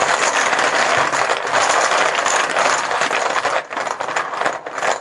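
Poker-style team chips being shaken and stirred in a container, a steady clattering that thins to a few separate clicks near the end and then stops.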